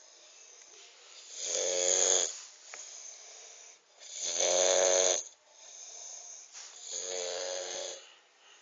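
Snoring: three long snores, each about a second, coming roughly every two and a half to three seconds, with quieter breathing between them.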